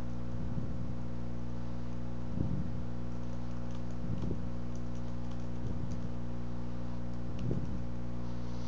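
Computer keyboard typing: faint scattered key clicks over a steady low electrical hum, with soft low thumps every second or two.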